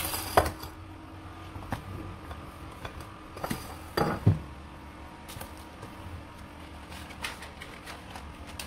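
Stainless steel pan and pot knocking and clinking against a gas stove's grate: a few separate knocks, the loudest cluster about four seconds in, then a couple of light ticks.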